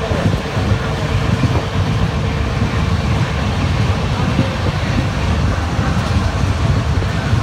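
Steady rumble of an express passenger train running at speed, wheels on rail, heard from aboard the coach, with a faint steady whine over it for the first few seconds.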